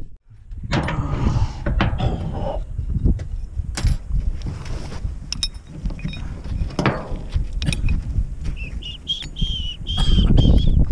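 Scattered knocks and metallic clinks from hands and tools working on a manure spreader's floor conveyor chain, over a low rumble. A small bird chirps repeatedly near the end.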